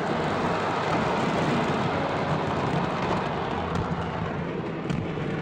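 Masses of stockpiled fireworks going off together in a dense, continuous roar and crackle, with a couple of sharper cracks near the end.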